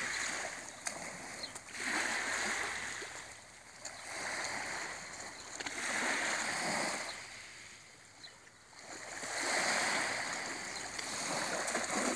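Small sea waves washing onto a pebbly shore, rising and falling about every four seconds, with a splash near the end as a cast net lands on the water.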